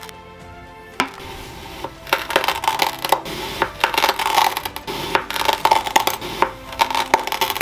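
Knife slicing through kinetic sand: gritty, crunchy scraping in quick irregular bursts, starting about two seconds in after a single click.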